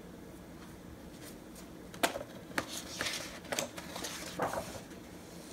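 A page of a hardcover picture book being turned: paper rustling with a few sharp crackles, starting about two seconds in and lasting a little under three seconds, over faint room tone.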